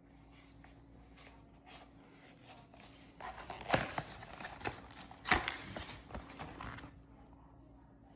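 Hands handling silicone food storage bags: a few faint ticks, then a few seconds of rustling and crinkling with two sharp clicks about a second and a half apart.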